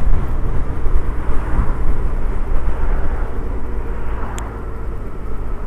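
Suzuki Hayabusa's inline-four engine running at a steady cruise, mixed with a low road and wind rumble. There is one short click about four seconds in.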